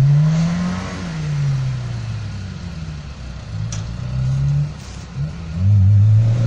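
Off-road 4x4's engine revving in bursts, its pitch climbing and then dropping back; the loudest rev comes near the end.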